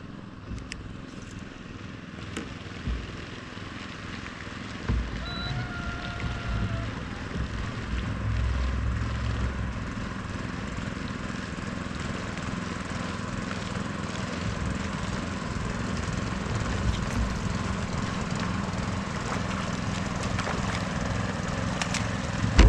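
A motorboat engine running steadily and slowly growing louder. At the very end a hooked fish splashes at the surface.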